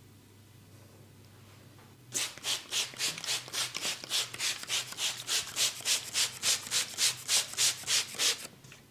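Massaging hands rubbing briskly back and forth over skin or hair, about four strokes a second, starting about two seconds in and growing louder toward the end.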